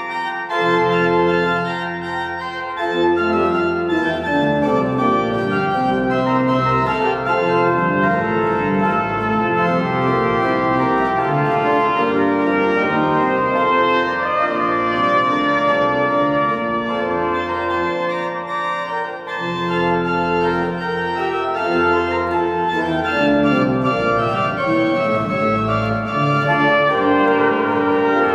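Pipe organ playing sustained chords, joined by a solo brass horn with rotary valves playing a slow melody.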